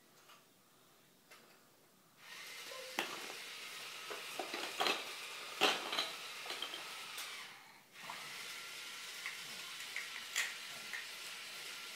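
Large plastic Lego bricks clicking and clacking as they are handled and pressed together, a scatter of sharp clicks over a steady hiss that starts about two seconds in and drops out briefly about two-thirds of the way through.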